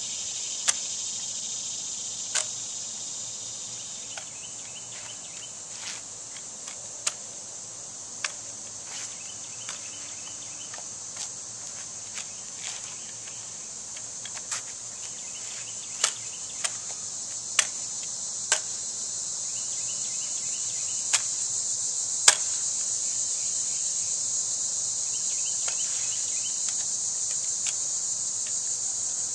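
Crickets chirring steadily, with sharp slaps and knocks at irregular intervals of about a second as an exhibition drill rifle is spun, caught and struck against hands and body; the loudest knock comes about two-thirds of the way through.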